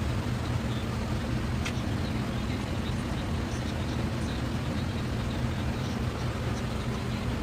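Steady low mechanical rumble, even throughout, with faint scattered ticks and one sharp click about a second and a half in.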